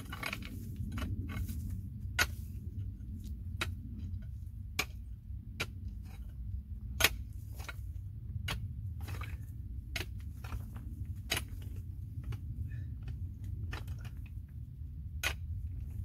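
A hand digging tool striking stony soil and loose rocks in repeated sharp clicks and knocks, at an uneven pace of about one or two a second, with one louder strike about seven seconds in.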